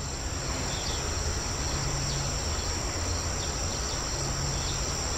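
Steady high-pitched insect chorus, over a low rumbling noise.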